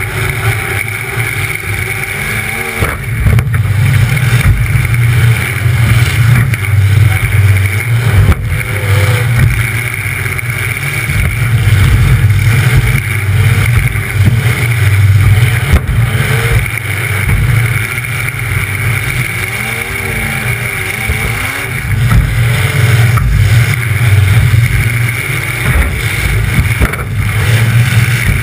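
A demolition derby car's engine runs loud through short open exhaust pipes poking up through the hood, and its pitch rises and falls as it revs. A few sharp knocks stand out over the engine now and then.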